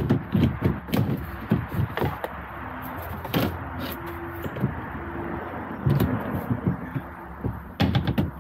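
Irregular knocking and clunking: many sharp knocks at uneven intervals, bunched most densely near the start, about six seconds in and in the last half second.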